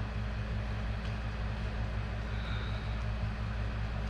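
A steady low hum that stays the same throughout, with no distinct events.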